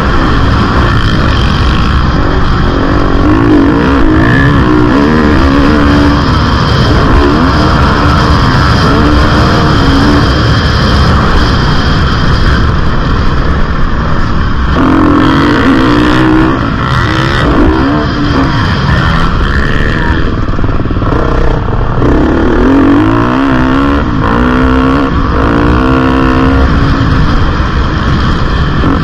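2022 GasGas MC250F's 250cc four-stroke single-cylinder engine under hard riding, revving up again and again and dropping back as it is shifted and throttled through the corners.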